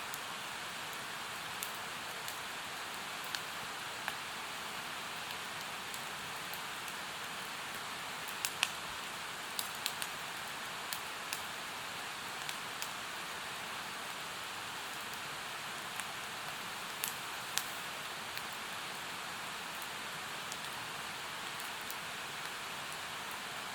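Steady rushing of a mountain stream, with a wood fire crackling over it in sharp, irregular pops, a dozen or so, two of them louder.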